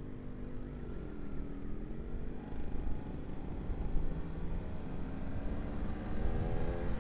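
Motorcycle engines running at low road speed, the rider's own sport bike and a Yamaha RX-King two-stroke just ahead, over a low wind rumble. The engine note wavers and climbs near the end as the bikes pick up speed.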